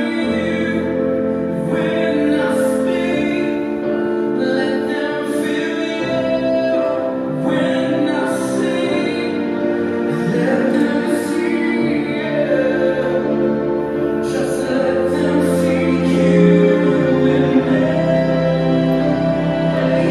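Music: a song with singing over sustained accompanying chords.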